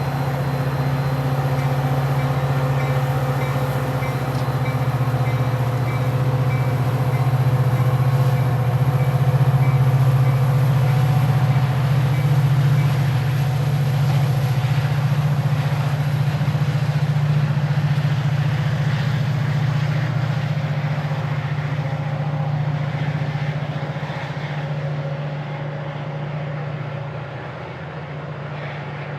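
Metra commuter train pulling out of a station: a steady low drone with held tones above it, building to a peak about ten seconds in and then slowly fading as rail and wheel rattle comes up.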